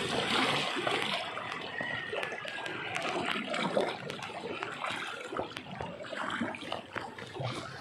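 Fast, shallow river current rushing and splashing past a small wooden paddle boat, with the splash of the wooden paddle dipping into the water.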